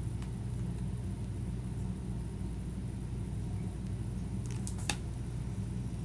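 Steady low hum of room background noise, with two faint clicks close together near the end.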